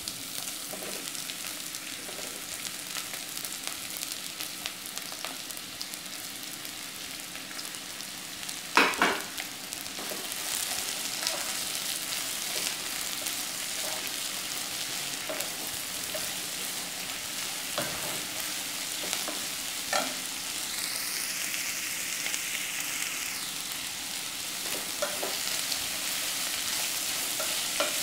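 Freshly added sliced onions sizzling in hot coconut oil in a non-stick pot while a wooden spatula stirs them. A steady frying hiss runs under occasional sharp knocks, the loudest a pair about nine seconds in.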